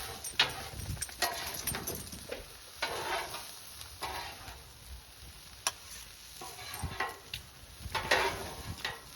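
Food sizzling on a grill, with a spatula scraping and tapping across the cooking surface in irregular short strokes.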